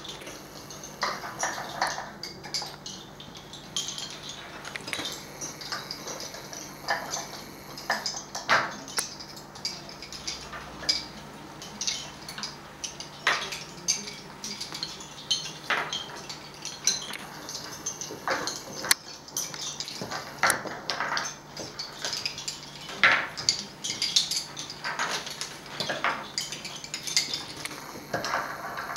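Wooden lace bobbins clicking and clattering against one another as lacemakers cross and twist the pairs on bobbin-lace pillows, in irregular quick clusters of small clicks.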